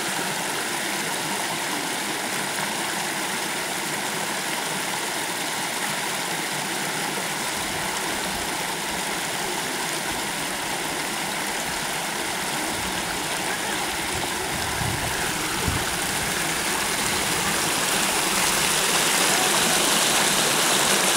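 Shallow river water running and rippling steadily, growing a little louder near the end.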